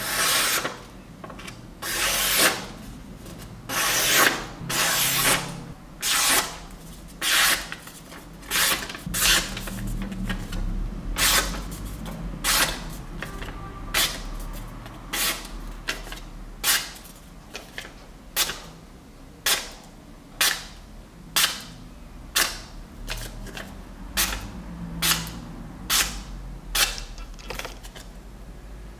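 A freshly sharpened Serbian-style cleaver slicing again and again through a sheet of paper held in the air, as a test of its edge. Each cut is a brief slicing sound. The first few are longer, and later they come shorter and quicker, a little more than one a second.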